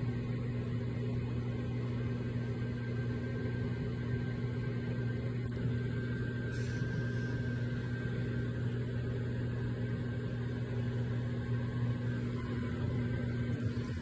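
Microwave oven running: a steady low hum.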